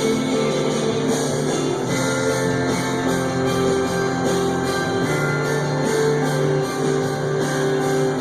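Instrumental passage of a gospel worship song, led by strummed guitar, with no singing.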